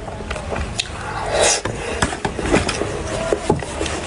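Close-miked mouth sounds of chewing soft cream-filled sponge cake: wet lip smacks and clicks throughout, with a louder breathy rush about a second and a half in.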